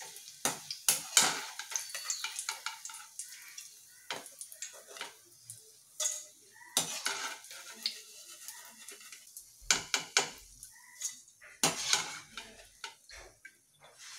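A slotted ladle scraping and clinking against a metal kadai and a steel colander as fried bitter gourd rings are scooped out of hot oil, with a faint sizzle of the frying oil underneath. The clinks come irregularly, in small clusters.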